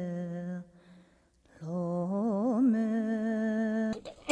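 A single voice singing in long held notes. It breaks off for about a second near the start, comes back with a wavering turn, then holds a steady note until it cuts off near the end.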